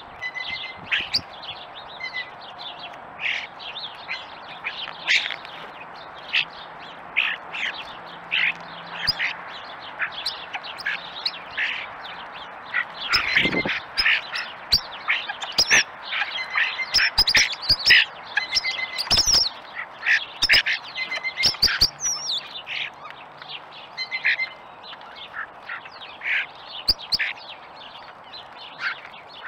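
A flock of European starlings chattering: a steady stream of short chirps, whistles and clicks, busiest through the middle stretch. A few sharp knocks stand out around the middle.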